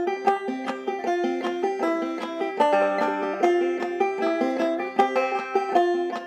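Five-string banjo in double C tuning played clawhammer style with drop-thumb, a steady run of plucked melody notes, several a second, with the strings ringing on between them.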